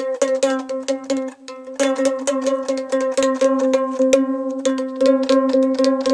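Music: a plucked string instrument, mandolin-like, playing fast repeated notes on steady held pitches, with a brief break about a second and a half in.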